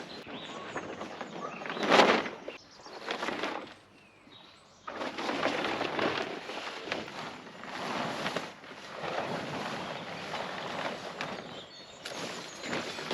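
Irregular rustling noise in swells of about a second each, with a few faint bird chirps.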